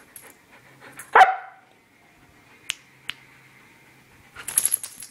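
A young Siberian husky gives one short bark about a second in. Two faint clicks follow, then a burst of rustling near the end.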